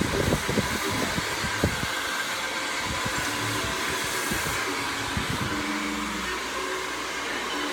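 Hair dryer blowing steadily, with a few low bumps in the first two seconds.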